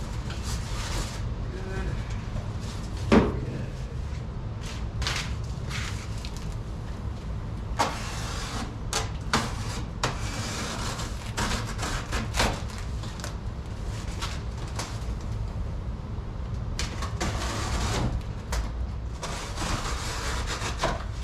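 Cardboard box and packaging being handled while a swamp cooler is unboxed: scattered rustles, scrapes and light knocks over a steady low hum.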